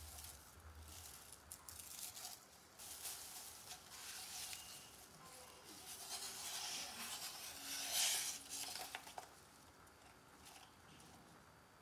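A series of irregular scraping strokes from the Arijiro santoku knife's steel blade, the loudest about eight seconds in.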